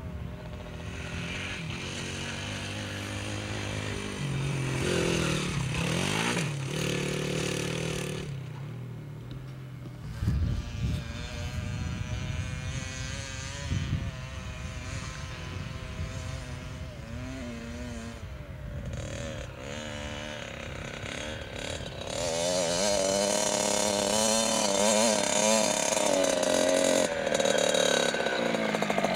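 A youth dirt bike's engine revving up and down as it is ridden around a dirt motocross track. It grows plainly louder from about two-thirds of the way through, as the bike comes up close.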